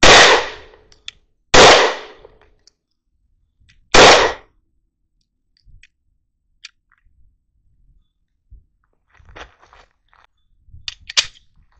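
Three shots from a CZ P10C pistol, the second about a second and a half after the first and the third about two and a half seconds later, each with a short echoing tail. A few faint clicks follow near the end.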